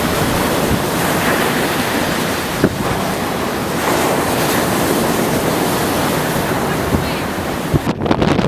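Storm wind from Hurricane Sandy blowing hard across the microphone over the steady rush of heavy surf. Near the end the high hiss drops away suddenly and the wind turns gustier.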